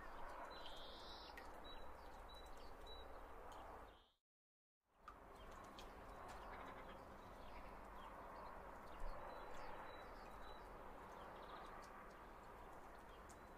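Near silence: faint steady background hiss with a few short high chirps and small clicks. It cuts out completely for about half a second about four seconds in.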